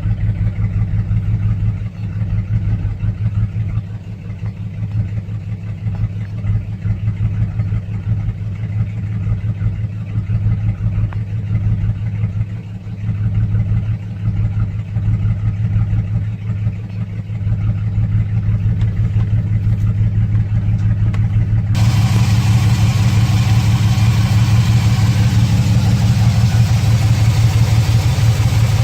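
Chevrolet Silverado 4.3-litre V6 running rough at idle, its sound uneven and stumbling: the sign of a cylinder 5 misfire (code P0305) with an injector circuit fault (P0200). About three-quarters of the way through, the engine sound abruptly becomes louder and brighter.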